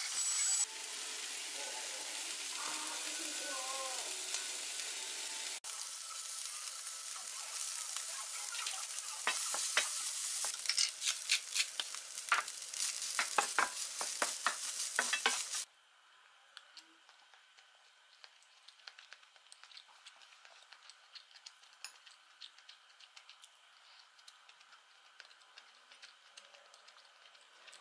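Sauce, egg and rice sizzling in a hot nonstick wok while a wooden spatula stirs and scrapes, the clicks of the spatula getting busier from about nine seconds in. The sizzling cuts off suddenly about sixteen seconds in, leaving a quiet room with faint light ticks.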